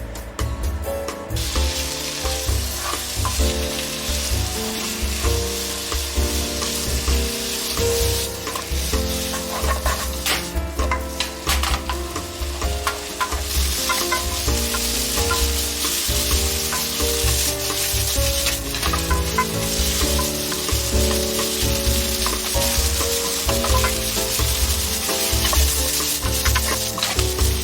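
Food sizzling in a hot frying pan while being stirred, with a few utensil clicks against the pan, over background music with a steady bass beat.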